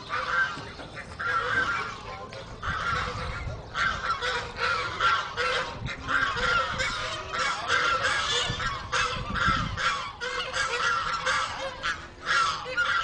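A flock of white domestic geese honking, many short calls overlapping in a continuous chorus.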